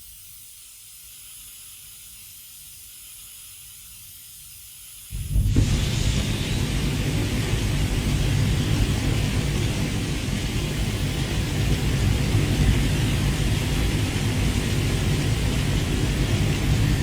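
Flamethrower firing: a thin hiss of pressurised gas, then about five seconds in a sudden ignition into a loud, continuous blast of fire with a heavy low rumble under the rush.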